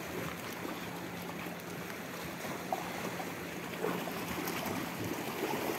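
Calm sea water lapping and washing against shore rocks, a steady low wash with a few small splashes.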